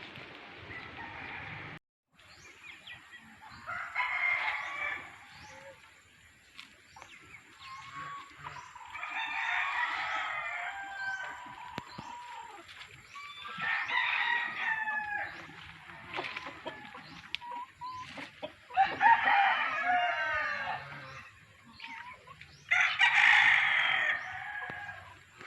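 Roosters crowing: five long crows, one about every four to five seconds, with softer clucking between them.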